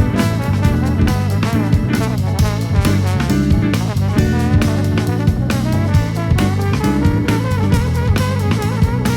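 Jazz-fusion octet playing live: full drum kit and electric bass driving a busy groove, with brass and saxophone lines, electric guitar and keyboard on top.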